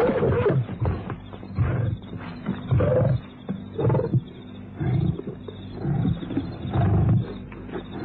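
Lions fighting over a fresh wildebeest kill, their calls coming in irregular loud bursts about once a second. It is an old narrow-band broadcast recording with a steady low hum underneath.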